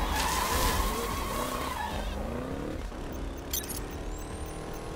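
Off-road side-by-side buggy revving hard as it slides sideways and sprays sand, its engine pitch rising over the first two seconds before easing off. About three and a half seconds in there is a short sharp click, followed by a thin rising high whistle.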